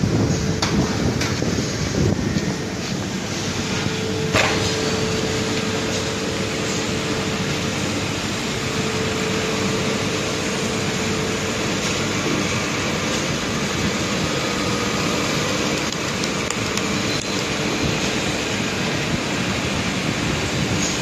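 A power drill driving a tungsten carbide tipped hole saw, cutting steadily with a constant whine and a sharp click about four seconds in.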